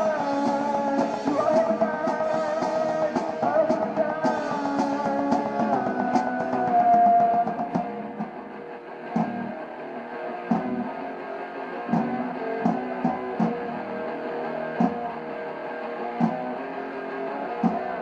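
Rock band jamming live: electric guitar playing sustained lines over drums, with one loud held note. About eight seconds in it drops to a quieter, sparser passage punctuated by drum hits.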